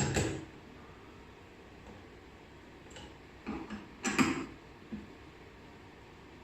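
A handful of short knocks and clicks as a zinc zipper slider and its puller are clamped into a slider torsion testing machine: one knock at the start, then a cluster a few seconds in, the loudest about four seconds in.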